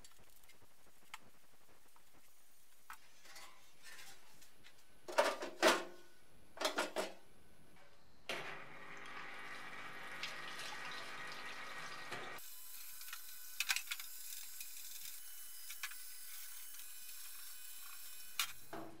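A few short, loud rasps as the fuel tank's holes are covered over, then a red parts washer running: its pump hums while solvent streams from the brush hose over the steel fuel tank, giving way to a steady splashing hiss with small clicks and knocks.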